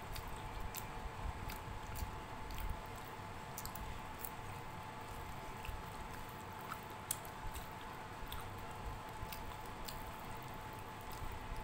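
Chewing, and the wet squish of fingers mixing soft broken-wheat khichdi on a steel plate, with scattered small clicks.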